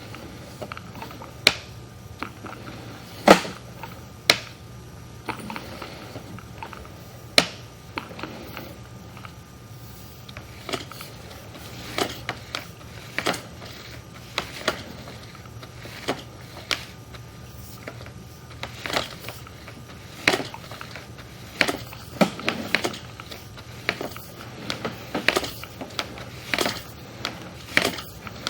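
Sewer inspection camera and its push cable being worked along a sewer line from a basement cleanout: irregular clicks, ticks and knocks, several loud ones early on and more frequent ones near the end, over a steady low hum.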